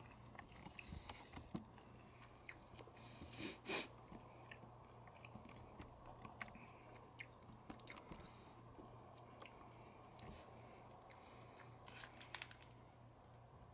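A person quietly chewing and biting into a crisp fried snack, with small crunches and clicks and one louder crunch about three and a half seconds in, over a faint steady low hum.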